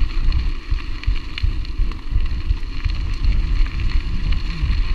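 Wind noise on the microphone of a camera on a moving mountain bike, an uneven rumble, with the tyres rolling over a dirt road and scattered small clicks and rattles from the bike.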